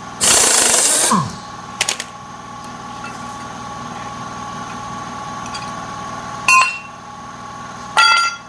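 Pneumatic wrench on an air hose running in one loud burst of about a second as it undoes a share bolt, its pitch falling as it stops. Sharp metallic clinks follow, a few seconds apart, as the loosened steel share and its bolts are handled, over a steady background hum.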